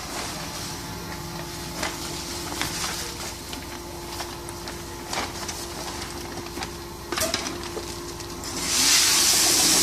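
Powder auger-filling machinery running with a steady hum and scattered light ticks. Near the end a much louder hissing rush starts and holds.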